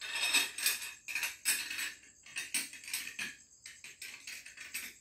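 A quick, irregular run of rattling, rustling handling noises, like objects being moved and shaken.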